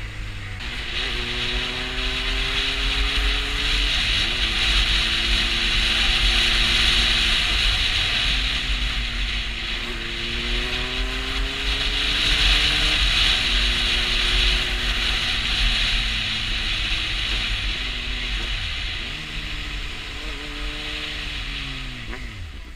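Honda CB600F Hornet's inline-four engine pulling through the gears: its pitch climbs, then drops at each shift several times, and winds down near the end as the bike slows. Heavy wind noise on the microphone rises and falls with road speed.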